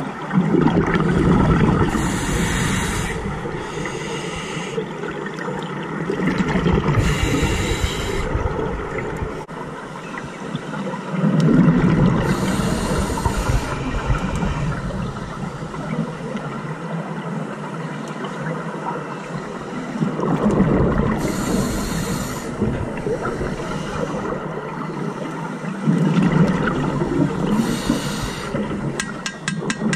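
Scuba diver breathing through a regulator underwater, about five breaths. Each exhale is a loud burst of bubbling, followed by the hiss of the regulator's demand valve on the inhale.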